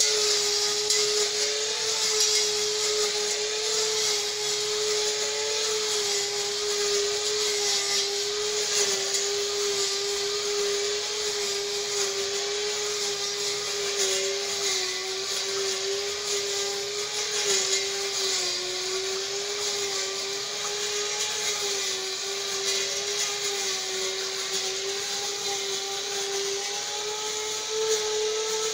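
Electric angle grinder spinning a brush-cutter blade as an improvised lawn mower, running with a steady high whine as it cuts thick, long grass. The pitch sags slightly now and then as the blade takes the load.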